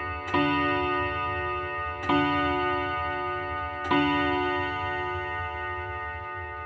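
Urgos dual-chime clock striking: three evenly spaced strikes about two seconds apart, each ringing on with a cluster of metallic tones that slowly fade. The repeated single strikes of the same pitch count out the hour after the chime tune.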